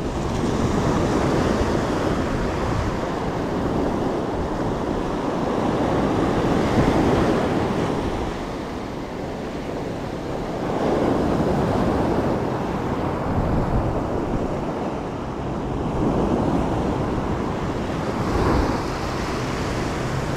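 Ocean surf breaking and its wash running up the sand, swelling and easing every few seconds.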